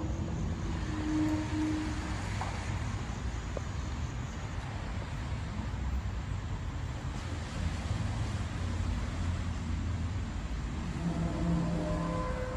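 Steady low rumble with a faint drawn-out tone at about a second in. Near the end, several held metallic, trumpet-like tones at different pitches start to sound over the rumble.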